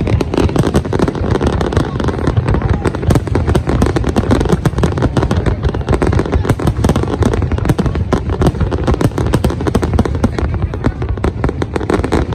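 Large fireworks display going off: a dense, unbroken barrage of bangs, many each second, over a heavy low rumble.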